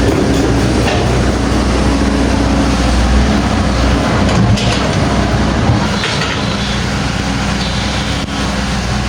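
Hydraulic excavator's diesel engine running steadily with a low drone, with a few sharp knocks about halfway through.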